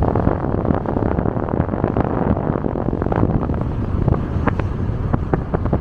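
Wind buffeting the microphone of a camera held at the open window of a moving car, in irregular loud gusts over the low rumble of the car on the road. It cuts off sharply at the very end.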